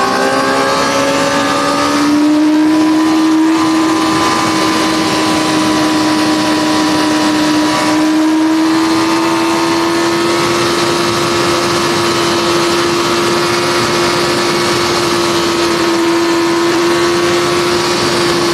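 Suzuki GSX-R 600 SRAD's inline four-cylinder engine heard from on board while riding. The revs climb over the first couple of seconds, then hold nearly steady at a high pitch, with a slight dip about eight seconds in.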